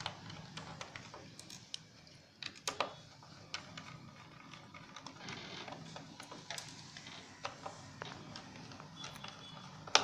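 Small screwdriver backing the screws out of a 2.5-inch laptop hard drive's metal top cover: irregular light clicks and ticks of the tip on the screw heads, with a few sharper clicks about two and a half seconds in and just before the end.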